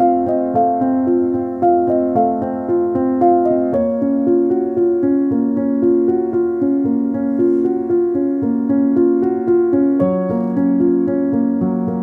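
Background romantic solo piano music, a gentle flowing pattern of repeated notes, with chord changes about four seconds in and again near the end.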